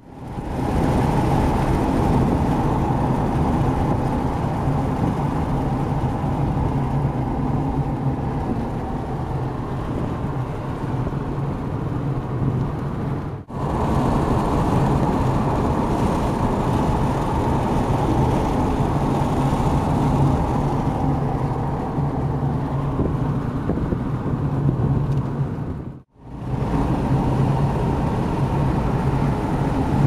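Steady road noise inside a moving car: engine and tyre drone. It drops out briefly twice, about 13 and 26 seconds in.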